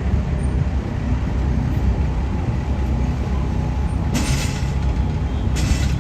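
Heavy-haul semi truck's diesel engine running with a steady low rumble as it pulls the beam trailer slowly through a turn. From about four seconds in, hissing bursts of released air from the rig's air brakes.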